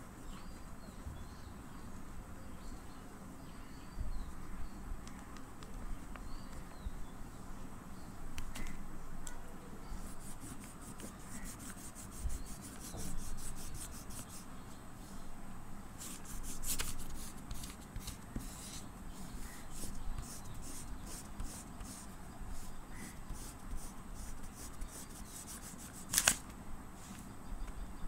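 Oil pastel rubbing on paper in quick back-and-forth colouring strokes, a fast run of scratches that sets in about a third of the way through. A sharp tap near the end is the loudest moment.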